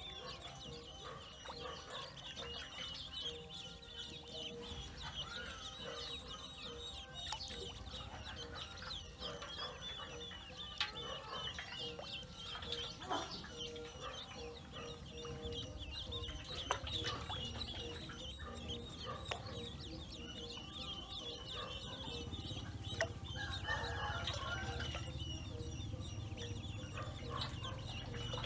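A group of Pekin ducklings peeping without pause, many short high calls overlapping, with a few small splashes and knocks as they paddle about in a metal basin of water.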